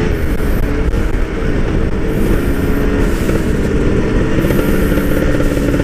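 Two-stroke motorcycle engine running while under way, its pitch drifting gently up and down with small throttle changes, over a steady low rumble of wind and road.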